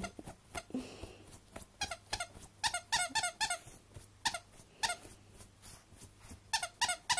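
Dog scratching and pawing at a sheet, with clusters of short high squeaks, several in quick succession.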